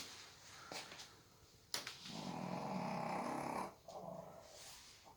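Snoring: one long snore lasting about two seconds starts a little under two seconds in, followed by a shorter, fainter breath.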